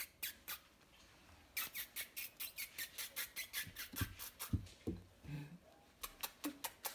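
Very young puppies, a litter of two-and-a-half-week-old Golden Mountain Doodles, squeaking: a fast, even run of short high squeaks, about six a second, with a few low grunts in the middle and a short pause before the squeaking picks up again near the end.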